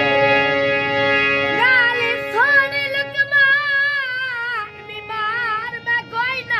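A boy singing a melody with wide vibrato and quick ornaments, starting about one and a half seconds in, over a chord held on a keyboard. The held chord fades out partway through while the voice carries on.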